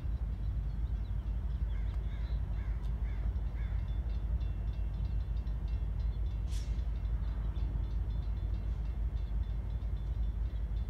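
A crow cawing five times in quick succession about two seconds in, over a steady low train rumble; a brief sharp hiss comes about six and a half seconds in.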